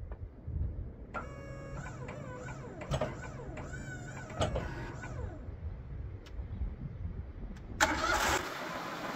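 Portable band sawmill's engine being started and run up, its pitch rising and falling from about one to five seconds in. Near the end a loud rushing noise starts suddenly and keeps going.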